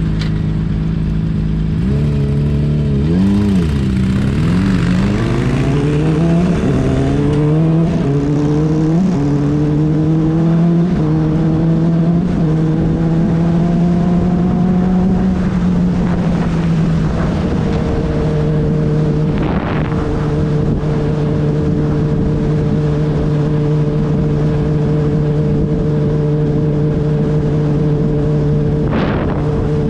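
Motorcycle engine heard from the moving bike with wind rushing past. The engine note wavers a few seconds in, climbs over about ten seconds as the bike accelerates, then settles into a steady cruise about halfway through. Two short whooshes are heard later on.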